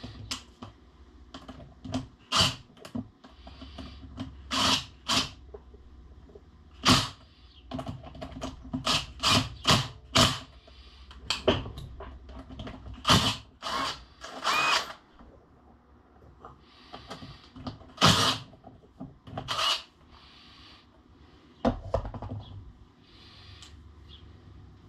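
Irregular metal clinks, clanks and short scrapes from work at a lathe chuck while its jaws are being reversed, over a faint steady low hum.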